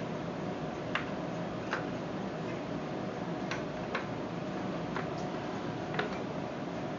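Spanner wrench tightening a part on a knob lock: about six sharp metal clicks at irregular intervals over a steady background hiss.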